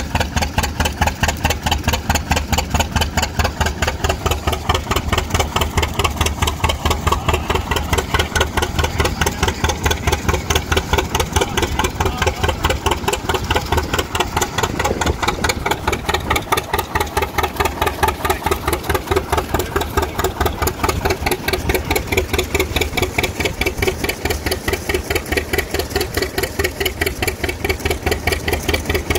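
John Deere A two-cylinder engine running steadily under load, driving a Baker fan through a flat belt from its belt pulley. It has the even popping exhaust beat of a two-cylinder Deere.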